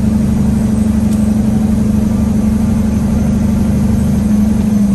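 A dump truck's diesel engine heard from inside the cab, running steadily at a constant pitch over a low rumble.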